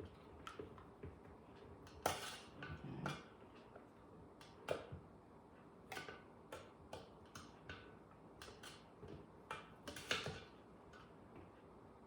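Scattered light clicks, taps and short scrapes of a kitchen utensil against a Thermomix's mixing bowl and blade, pushing stuck gelatine off the blade.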